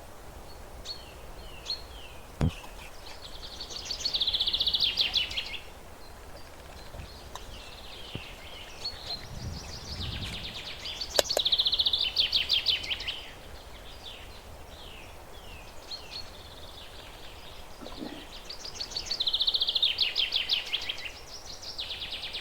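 Birds singing: a fast trilled song that comes three times, about every seven to eight seconds, with short down-slurred chirps in between. A few faint clicks sound as well.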